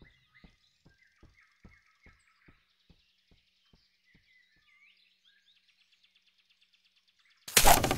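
Quiet forest ambience with soft bird chirps and a run of faint, even ticks about two a second that fade out by about four seconds in. Near the end a sudden loud burst of noise lasts about half a second.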